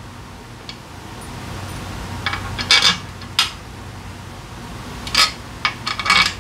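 Metal hand tools (sockets, T-handle wrenches and bars) clinking against each other as they are picked through and handled. There are a few sharp clinks two to three seconds in and a quicker cluster near the end, over a steady low hum.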